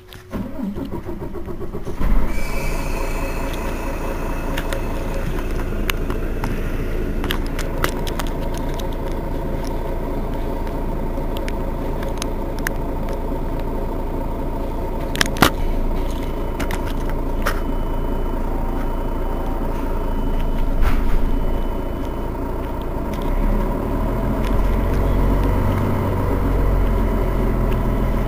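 Mercedes-Benz Citaro Facelift bus's straight-six diesel engine being started: the starter cranks for about two seconds, then the engine catches and settles into a steady idle. There is a sharp click about halfway through, and the low rumble grows stronger near the end.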